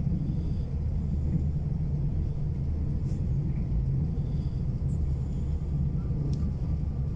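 Steady low rumble of a passenger train running at speed, heard from inside the carriage.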